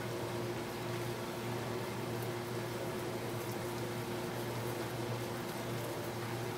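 Beef pieces sizzling in sauce in a nonstick frying pan, a steady hiss with faint crackles, over a steady low hum.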